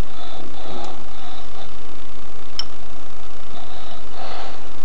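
Steady low hum and hiss of room tone, with faint muffled sounds and one sharp click about two and a half seconds in.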